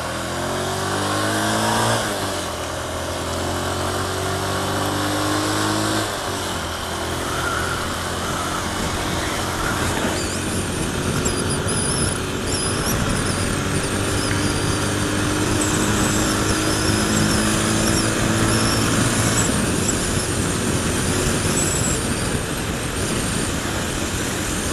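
Honda motorcycle engine pulling away and accelerating, its pitch rising, with upshifts about two and six seconds in. It then cruises at a steady speed with wind rushing over the helmet microphone.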